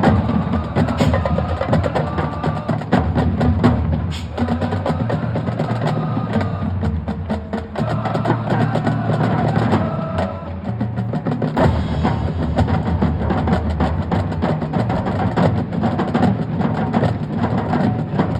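High school marching band playing its competition field show, with percussion to the fore: many quick, sharp strikes over pitched melodic lines and a strong bass.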